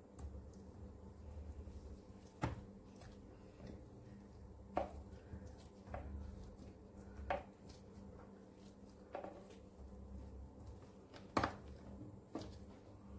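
Boiled potatoes being cut into chunks with a kitchen knife over a plastic bowl: a short knock every one to two seconds as the knife and pieces hit, about seven in all, the loudest near the end. A low steady hum runs underneath.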